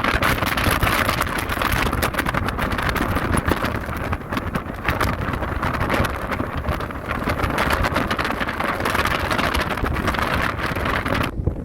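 Gale-force wind buffeting the microphone in heavy gusts over pounding sea surf, a loud rushing roar that drops off suddenly near the end.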